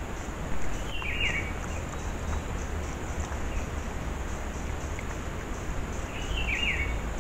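A wild bird calls twice, about five seconds apart, each call a quick run of short falling notes, over steady outdoor background hiss and a low rumble.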